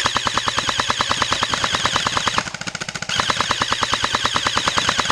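Airsoft gun firing on full-auto in two long, rapid bursts, with a short break a little over two seconds in.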